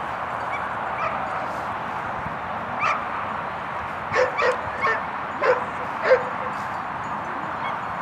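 A dog barking, a run of about six short barks from roughly three to six seconds in, over a steady hiss.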